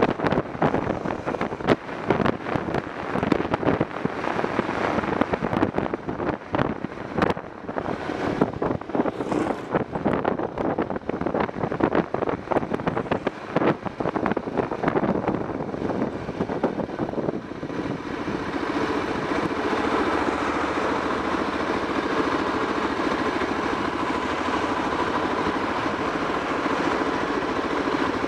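BMW F650 motorcycle under way, its engine running under choppy wind buffeting on the microphone. About two-thirds of the way through the buffeting stops and the engine settles to a steady idle.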